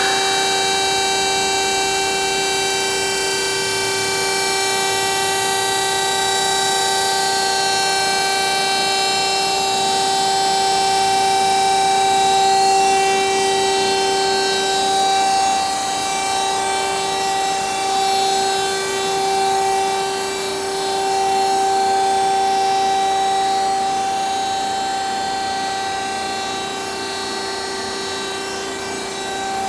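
DoAll TF-2021NC automatic bandsaw running with a steady, even whine made of several tones over a hiss.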